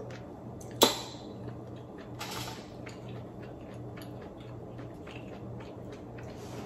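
Cooked black mussel shells clicking as they are handled and pried open by hand, with one sharp click about a second in, a short rustle a second later and scattered small ticks. A low steady hum sits underneath.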